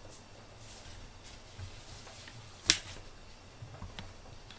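A single sharp click a little over halfway through, with a few faint ticks before and after it, over quiet room noise.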